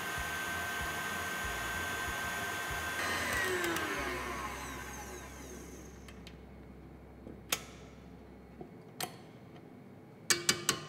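KitchenAid tilt-head stand mixer's motor running at speed as the wire whisk beats whipping cream. About three seconds in it is switched off and the whine falls in pitch as the motor winds down. Later come a few sharp clicks, a cluster near the end, as the whisk attachment is handled.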